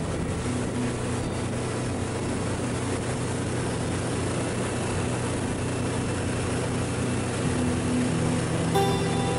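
Motorboat engine running steadily at speed, with water rushing past the hull.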